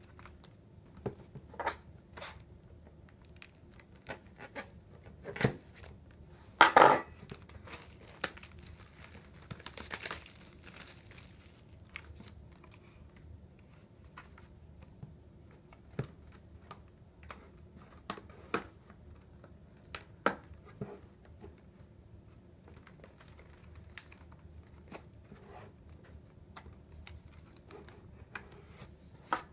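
Clear plastic wrapping being torn and crinkled off a cardboard box, loudest in the first half, followed by scattered taps and scrapes as the box is handled.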